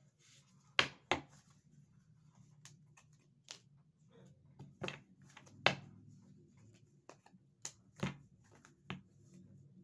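Tarot cards being handled by hand: an irregular series of about eight sharp card snaps and taps, over a low steady hum.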